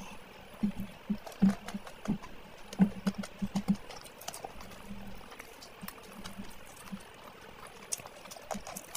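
Close-miked wet eating sounds: fingers squelching through curry-soaked rice, and lips smacking and chewing as meat is bitten off a leg piece in spicy mutton curry. The short wet smacks come thick and fast for the first few seconds, then more sparsely.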